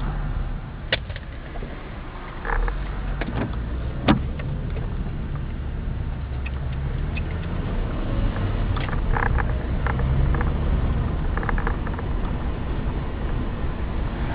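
Car engine and road noise heard from inside the cabin while driving at town speed, a steady low rumble. A few short clicks and knocks are scattered through it, the sharpest about four seconds in.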